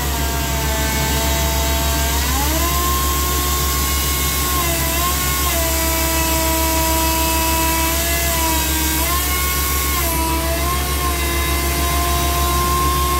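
Crawler drilling rig and its portable air compressor running together: a steady engine drone with a whine on top that steps up and down in pitch several times as the rig is worked.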